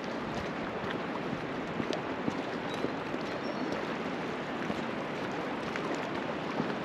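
Footsteps on a stone walkway: light, irregular taps over a steady rushing outdoor noise.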